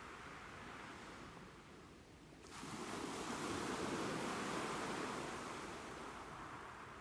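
Ocean waves washing onto the shore: the wash fades to a lull, then a new wave surges in about two and a half seconds in and slowly recedes.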